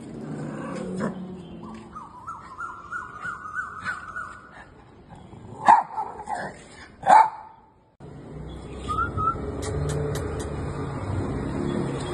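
Small spitz-type dog barking: two loud, sharp barks about six and seven seconds in, with quieter high notes before them.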